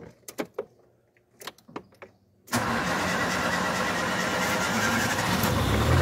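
A few light clicks, then the Ford Ka's Zetec Rocam four-cylinder engine fires about two and a half seconds in, catching at once, and settles into a steady run. It is an engine brought in for an abnormal knock, which the mechanic puts down to the timing chain.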